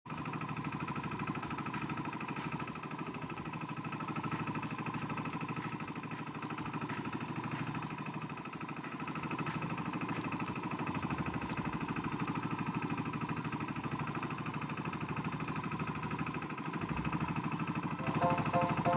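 Small fishing boat's engine running steadily with an even, pulsing hum. About a second before the end the sound changes abruptly and a repeating pattern of short beeps cuts in.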